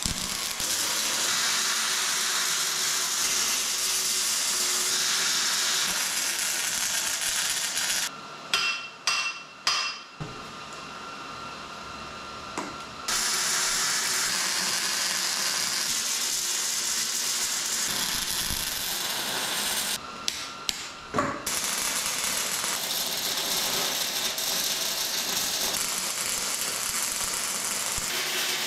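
Welding: long stretches of steady crackling hiss. It breaks off about eight seconds in, and again near twenty seconds, for a few sharp metal knocks that ring.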